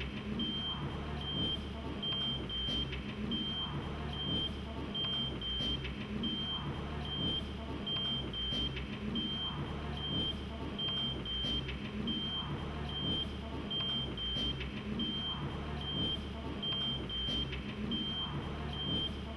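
A steady low hum under a looping pattern that repeats about every second and a half, with short high electronic beeps sounding in a regular rhythm throughout.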